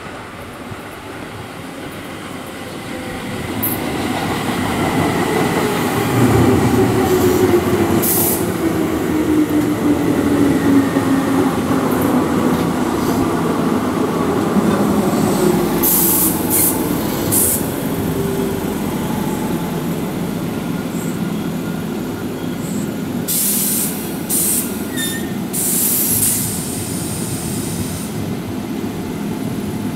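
Keihan 2400 series electric commuter train pulling into a station and braking to a stop. Its running noise swells as it arrives, with a whine that falls steadily in pitch as it slows. Brief high-pitched brake squeals come about halfway through and again near the end.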